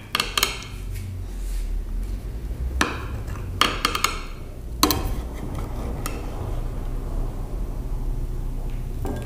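Knife cutting a slice of syrup-glazed orange cake and clinking and scraping against the metal cake tray: a handful of sharp clicks and short scrapes spread over several seconds, with a low steady hum underneath.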